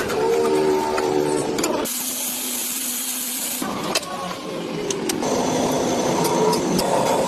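Workshop machinery running, heard in short sections that cut abruptly from one to the next; the middle stretch is a high hiss with little low sound.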